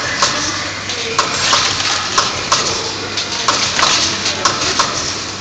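Steel strip sliding and clicking as it winds onto a turning table to form an uncut core. Sharp clicks come at uneven intervals about once a second over a steady hiss and a low machine hum.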